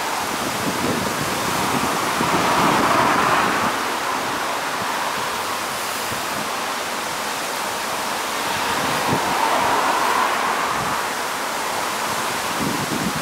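Bombardier Global 7500's twin GE Passport turbofans running at low taxi power: a steady rushing hiss that swells twice, about two seconds in and again about nine seconds in.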